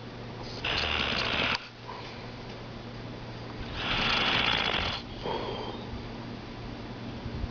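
A man snoring in his sleep: two loud snores about three seconds apart, each lasting about a second, with a softer breath just after the second.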